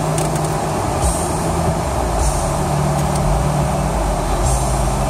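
2011 Mitsubishi Eclipse Spyder GS's 2.4-litre four-cylinder engine running under throttle, heard from inside the cabin as the car is driven around on snow. Its pitch steps up and down a few times, each step with a short burst of hiss.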